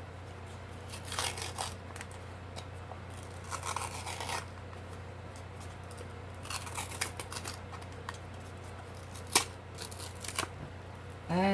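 Scissors snipping and a paper cup being cut and peeled away from a cured silicone mold, in several short rustling bursts, with a sharp click about nine seconds in. A steady low hum runs underneath.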